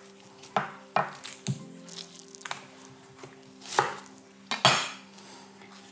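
Kitchen knife cutting a red onion on a cutting board: a handful of separate, irregularly spaced cuts, with two longer, louder strokes near the end.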